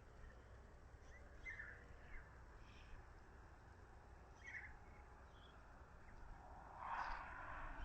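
Faint, scattered bird chirps over a low background rumble, with a slightly louder, broader sound about seven seconds in.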